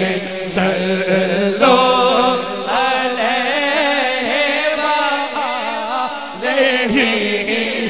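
Man singing a naat into a microphone over a PA, a devotional chant of long held notes with wavering ornaments and glides, above a steady low hum.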